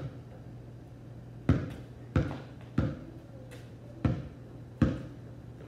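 A basketball bouncing on a concrete driveway: five sharp bounces in an uneven rhythm, starting about a second and a half in.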